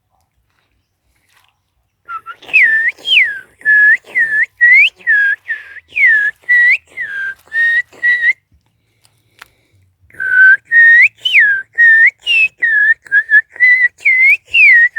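Bird song: loud, clear whistled notes, each swooping down and up, repeated about twice a second in a long run, a pause of about two seconds, then a second run.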